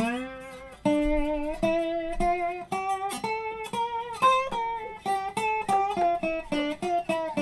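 Slide guitar in open G tuning playing the C Mixolydian (dominant-seventh) scale one note at a time, each note slid into, rising step by step and then coming back down.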